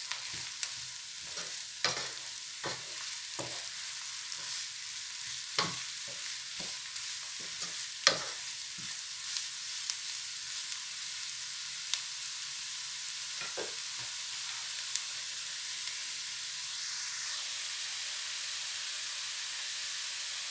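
Chopped vegetables (carrot, leek, zucchini and onion) sizzling in oil in a frying pan, with a wooden spatula knocking and scraping against the pan as they are stirred. The knocks stop after about fifteen seconds and the steady sizzle goes on.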